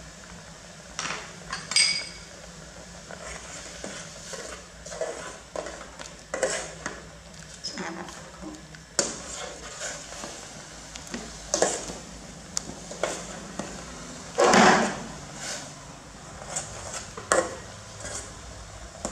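A ladle stirring pumpkin porridge in an aluminium cooking pot, with irregular clinks and scrapes against the pot's sides. There is a ringing clink about two seconds in and a louder, longer clatter about two-thirds of the way through.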